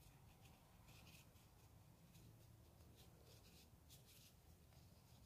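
Near silence with faint, scattered scratchy ticks: a crochet hook drawing yarn through single crochet stitches.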